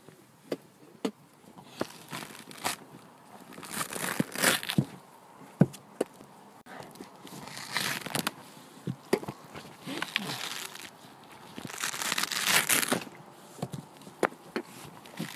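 Fibrous coconut husk being bitten and ripped apart with the teeth: crunching and tearing in irregular bursts, with sharp snaps of fibre in between.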